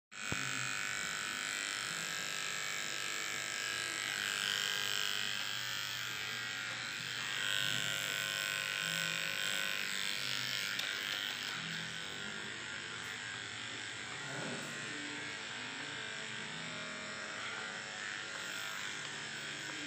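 Electric pet hair clippers running with a steady buzz as they are worked through a Maltese's long coat.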